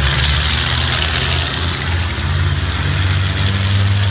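Racing trucks' big diesel engines running hard as they pass close by, a deep engine note that shifts in pitch. A strong hiss rides over the engines in the first half.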